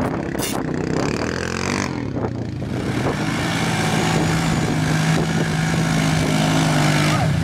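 ATV engine revving under load as the quad ploughs through deep mud, its wheels churning the mud. About three seconds in, the engine settles into a steady, high-revving note that holds until near the end.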